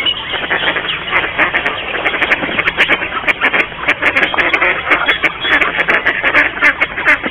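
Mallards quacking, a dense run of short quacks following one another several times a second.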